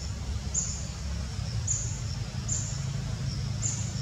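A small bird repeats a short, high-pitched two-note chirp about once a second, the second note lower than the first. Under it runs a steady low rumble.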